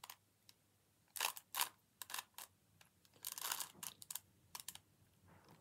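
Standard Rubik's-brand 3x3 cube being turned by hand: irregular plastic clicks and clacks as its layers are twisted, starting about a second in.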